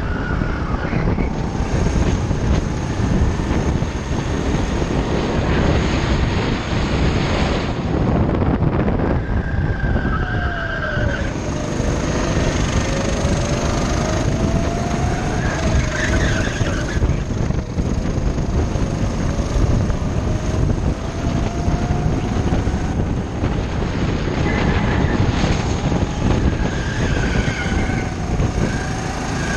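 Go-kart engine running at speed under a rush of wind noise, its pitch dipping and then climbing slowly as the kart goes through the corners.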